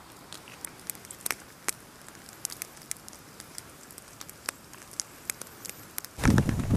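Wood campfire crackling, with scattered sharp pops at irregular intervals. Near the end it cuts abruptly to a much louder rushing noise.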